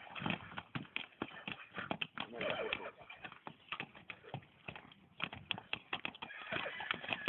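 Horses' hooves stamping and knocking on stony ground as a stallion mounts a mare: a rapid, irregular run of knocks and scuffs.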